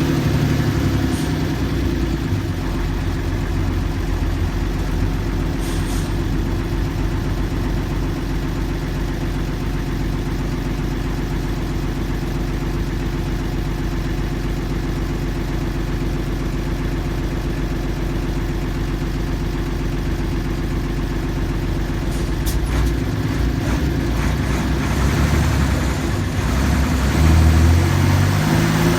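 Mercedes-Benz OF-1315 bus's diesel engine idling steadily. Near the end its pitch rises and falls a few times as the engine is revved lightly.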